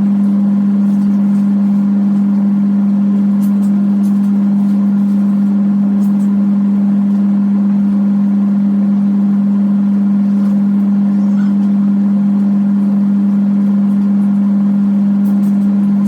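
Top-load automatic washing machine running, its motor giving a loud, steady hum that holds one pitch.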